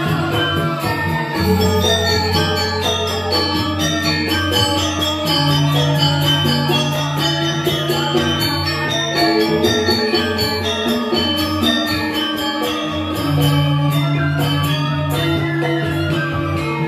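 Balinese semar pegulingan gamelan playing a Legong accompaniment: quick, dense strokes on bronze metallophones over long ringing low notes that change every few seconds, with suling bamboo flutes.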